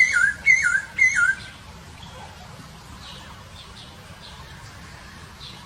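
Masked laughingthrush (poksay Hongkong) calling: three loud whistled notes about half a second apart, each sliding down, all in the first second and a half.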